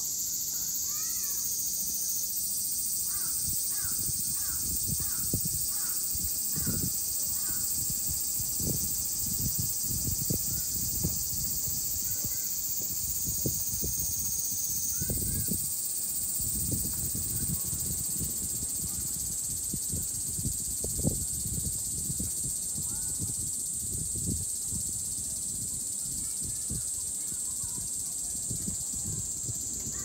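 Cicadas singing, a dense, steady, high buzz. A crow caws in a quick series of short calls a few seconds in, with a few more calls later, over low rumbling thumps.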